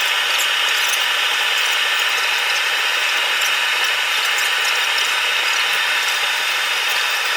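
Fast-forwarded tire mounting: tire irons working a thick-ply tire onto a small steel rim, sped up into a steady hiss scattered with rapid metallic clicks.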